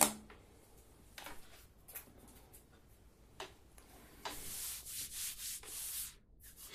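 Handling noise from a smartphone being held and worked by hand: a sharp click at the start, a few faint taps, then about two seconds of rubbing past the middle.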